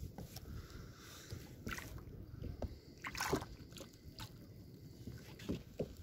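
Sea water sloshing against a kayak hull, with wind rumbling on the microphone. A few sharp knocks on the boat, the loudest about three seconds in.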